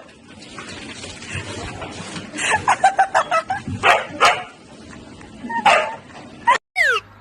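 A dog barking and yipping: a quick run of short high yips, then a few louder single barks. Near the end, after a brief break, a falling glide in pitch begins.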